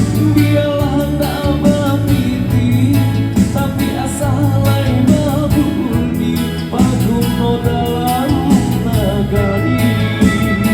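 A live band plays music with a singer: a sung melody over keyboard, bass and a steady beat, as heard at a band's sound check.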